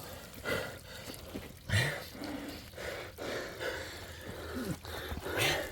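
A person's short breathy grunts and gasps, several in a row, some with a brief low rising pitch.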